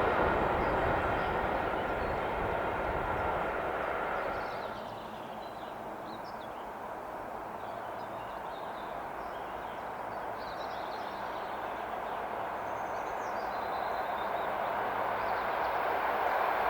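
Railway sounds: a passing noise with a steady whistling tone fades away over the first five seconds, faint bird chirps follow, and the rumble of an approaching train swells again near the end.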